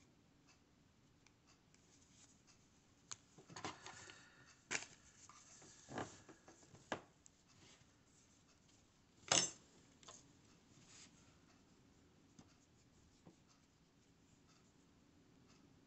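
Hands handling a crocheted yarn piece: scattered soft clicks, taps and rubbing, the sharpest click about nine seconds in, then only faint rustling.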